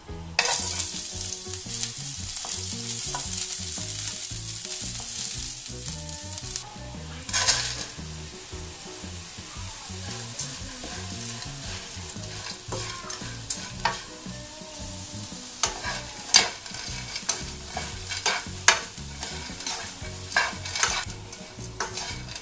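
Chopped green onion and garlic hit hot oil in a nonstick frying pan and sizzle loudly for about six seconds. Then dried small anchovies are tipped in and stir-fried with wooden chopsticks: a quieter sizzle under sharp clicks and scrapes against the pan, busiest in the second half.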